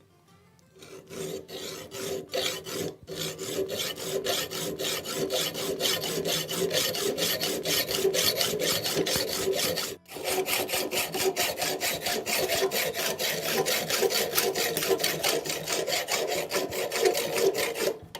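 Hand saw cutting through a metal support leg with fast, even back-and-forth strokes, stopping briefly about ten seconds in before sawing on.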